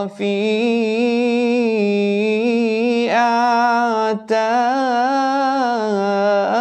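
A man's voice singing an Arabic qasidah solo, without accompaniment, drawing the words out into long held notes that waver in pitch. There is a short break for breath about four seconds in.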